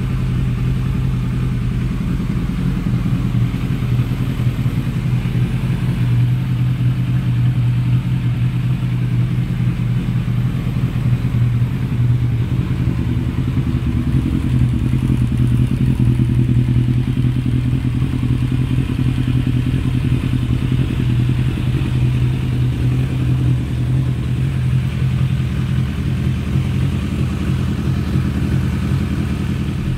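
Kawasaki ZRX1100's inline-four engine idling steadily, with an even, fast pulse and no revving.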